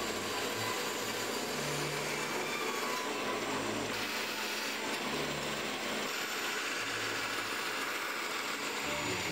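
Bandsaw running steadily while its blade cuts through plywood.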